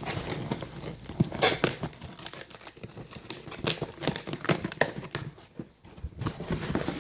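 A cardboard shipping box being torn open by hand, with irregular tearing, crinkling and rustling of the cardboard and packing inside.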